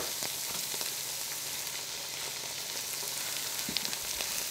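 Diced onion, garlic and peas and carrots sizzling steadily in melted butter in a pan, cooking down, with a few light clicks.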